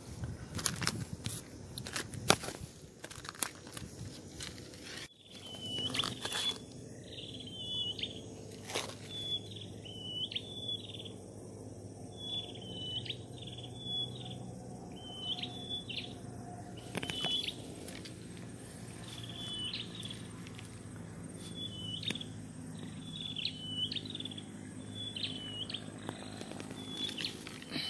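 A bird calling over and over in short, high chirps, roughly one a second, starting about five seconds in. Before that, rustling and knocks of handling.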